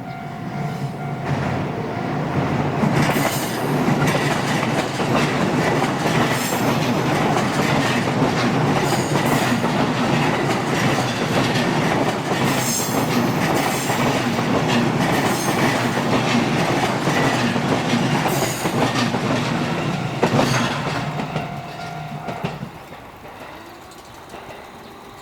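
JR electric train running over a level crossing, its wheels clattering over the rail joints for about twenty seconds before the sound fades near the end. A level-crossing warning bell rings under it, heard most clearly at the start and as the train clears.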